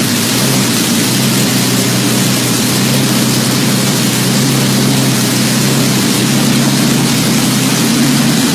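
V12 engine running smoothly at a steady speed, its low hum holding an even pitch.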